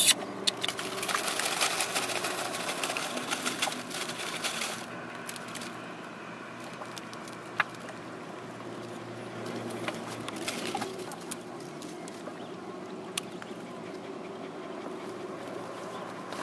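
Outdoor ambience: a steady background hiss with rustling and scattered clicks, busier for the first five seconds, then quieter with a few isolated ticks.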